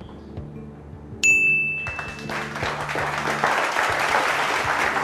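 Game-show answer-board chime: a single bright ding held for about a second over a soft music bed. It signals that the contestant's answer is on the board. Studio audience applause follows it and keeps going.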